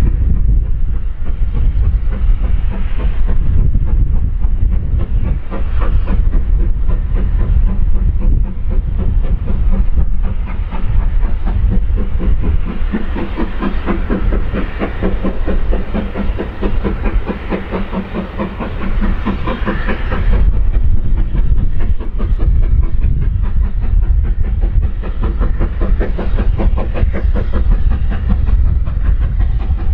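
Steam-hauled train running by with a fast, even rhythmic beat over a heavy low rumble.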